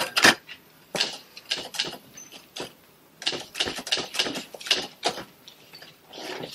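Knitting needles clicking and wool rustling in irregular short bursts.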